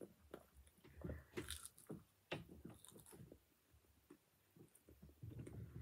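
A chicken nugget being chewed: faint, irregular crunching and wet mouth clicks, mostly in the first half.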